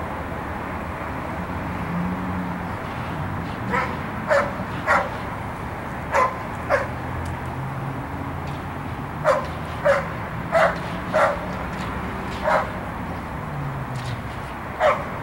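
A police patrol dog barks sharp, single barks, about eleven in all, singly and in pairs, at a hide box. It is alerting on the officer hidden inside.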